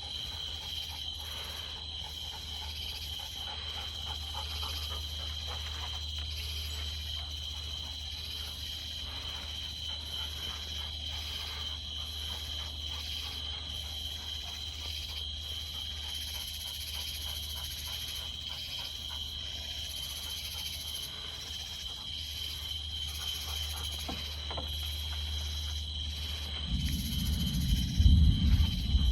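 Steady chorus of insects, two unbroken high tones, over a low hum; near the end a louder low rumble swells for about two seconds.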